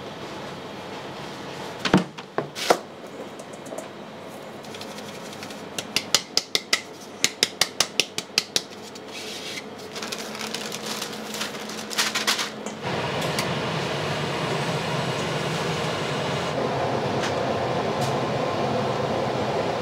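Kitchen work sounds: two sharp knocks, then a run of about ten quick clicks, about four a second. About 13 seconds in, a steady mechanical running noise starts and carries on.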